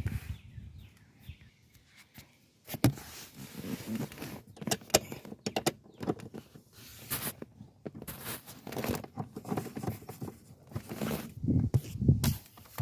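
Irregular clicks, knocks and scrapes of a car seat being set back down on its mounts and screwed in. The first couple of seconds are quiet, then a run of sharp clicks and knocks follows.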